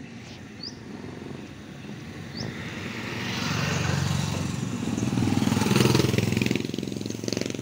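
A motorcycle engine passing by, growing louder from about two and a half seconds in, loudest about six seconds in, then dropping away near the end.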